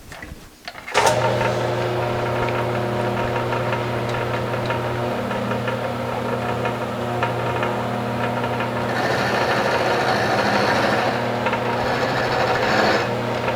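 Milling machine switched on about a second in, its motor running with a steady hum while the cutter mills the part. A brighter cutting sound rises for a few seconds near the end.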